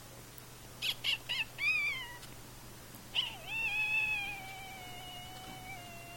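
Domestic cat meowing: a few quick chirps, a short meow that falls in pitch, then one long drawn-out meow that slowly drops in pitch.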